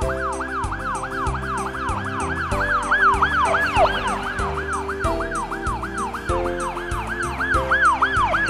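Emergency-vehicle siren sound effect in a fast yelp, its pitch sweeping up and down about three to four times a second, over background music.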